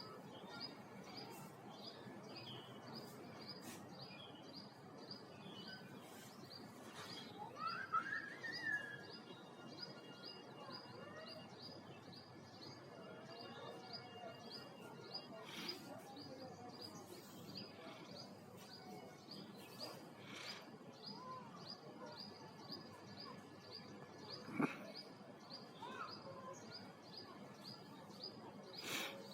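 Outdoor ambience with small birds chirping now and then, including a quick rising chirp about eight seconds in, over an even, high-pitched ticking of about four a second. There is a sharp click near the end.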